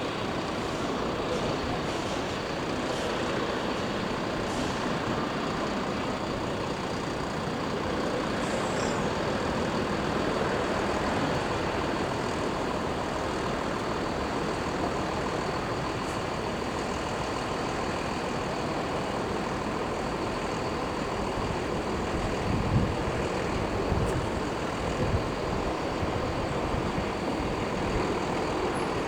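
Jet airliner engines running with a steady roar and a faint high whine held throughout. A few low thumps come in the last third.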